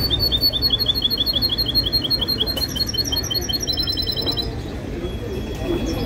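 Caged songbird singing: the same short chirp repeated about five times a second, switching to a faster trill about three and a half seconds in, then stopping.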